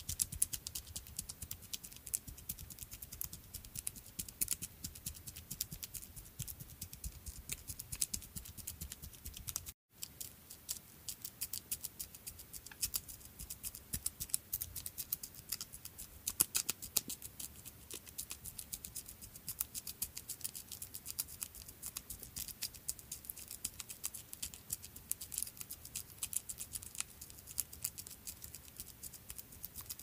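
Sound effect of a small creature's footsteps: a dense run of rapid, light ticks and taps, many a second, with a brief break about ten seconds in.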